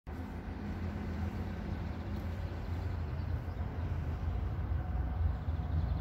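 Steady low rumble with a light hiss over it: outdoor background noise on the microphone, with no distinct events.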